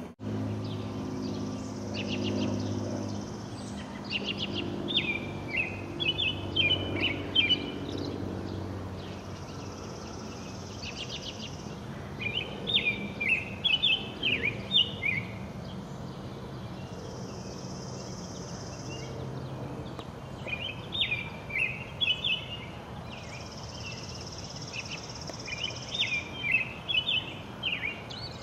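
A bird singing four phrases of quick chirping notes, with a high steady buzz between phrases, over a low rumble that is stronger in the first few seconds.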